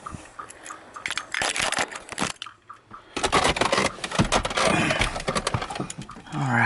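Ford Mustang 5.0 V8 cranking over on its starter without catching: a short try, a brief pause, then a longer crank of about three seconds. This is the crank-no-start fault that began after a new coolant temperature sensor was fitted, on a battery the owner says is dead.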